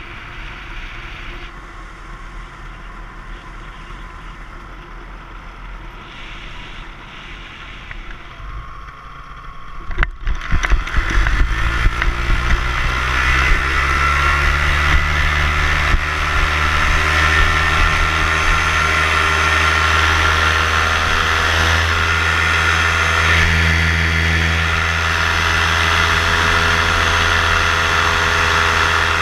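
Paramotor engine and propeller during a touch-and-go landing: wind rushes past at low power on the approach, a few knocks about ten seconds in as the feet touch the ground, then the engine is throttled up, rising in pitch over a couple of seconds, and runs at a steady full-power drone for the climb-out.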